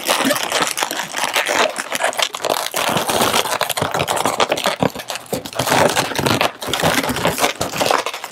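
Inflated latex 260 twisting balloons rubbing and scraping against one another as they are twisted and a balloon tail is pulled through the bubbles. The sound is a dense, scratchy rubbing with many small crackles.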